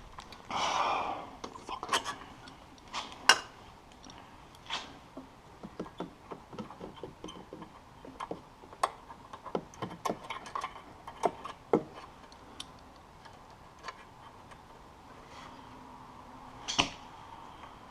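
Irregular metallic clicks, clinks and knocks from hand tools and exhaust parts being handled, with a short scraping rustle about half a second in and a louder knock near the end.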